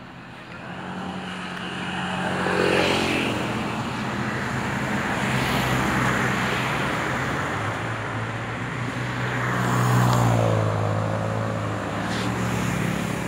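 Road traffic passing close by: vehicles go by one after another, each swelling and fading, with the loudest passes about three and about ten seconds in, engine hum over tyre noise.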